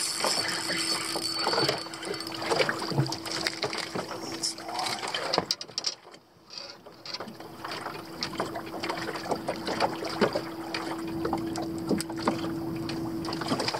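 Clicks and knocks of fishing gear being handled in a small boat, over a steady hum. The sound drops briefly about halfway through.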